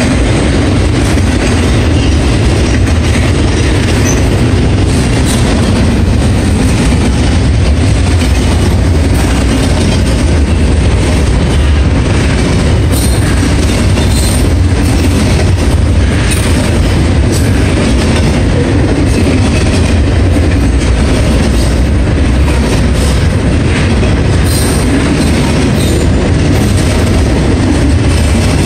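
The cars of a Norfolk Southern intermodal freight train rolling past close by: a loud, steady, deep rumble of steel wheels on rail, with scattered clacks over the rail joints.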